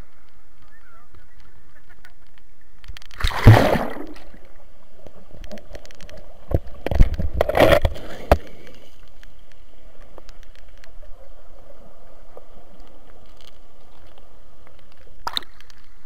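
A swimmer diving under the sea, with splashing and bubbling heard by a submerged microphone. There are two loud surges of churning water and bubbles, about three and a half seconds in and again around seven to eight seconds. Between them is a muffled steady underwater hiss, and a short splash comes near the end as he breaks the surface.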